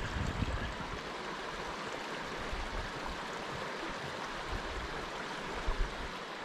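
Steady rush of a mountain creek tumbling over small falls, an even hiss of moving water.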